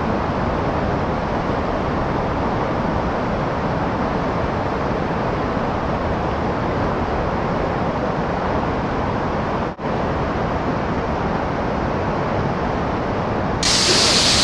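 Steady rush of whitewater pouring over rocks in rapids. It drops out for a moment about two-thirds through, and near the end it turns louder and hissier as the sound switches to the waterfall close by.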